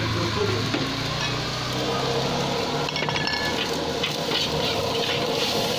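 Fried rice sizzling in a wok while a metal spatula stirs it, scraping and clinking against the pan about three seconds in and again near the end.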